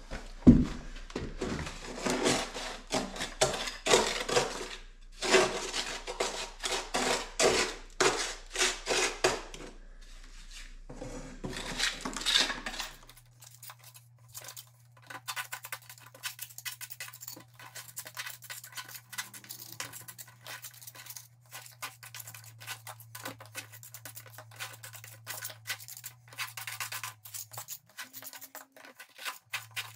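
Steel trowel scraping lime mortar off a board and pressing it into the joints of a stone wall, in rapid scrapes and taps. The scraping is louder and denser for the first dozen seconds, then turns to lighter, quicker scrapes and clicks.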